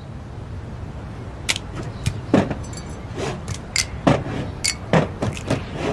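Intro of a pop song: a low steady bed fading in, with sharp percussive clicks and taps at uneven spacing, before the singing begins.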